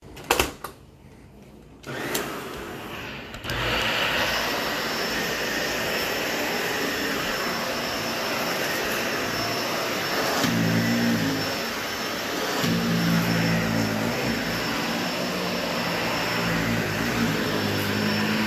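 Vacuum cleaner switched on about two seconds in and running steadily over carpet, with a lower hum coming and going from about ten seconds in.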